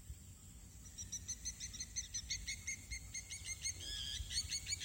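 Birds chirping in quick, repeated short notes that start about a second in, with a brief held whistle-like note near the end.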